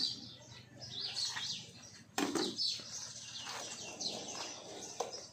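Small birds chirping repeatedly in short, high, falling calls, with one sharp knock about two seconds in.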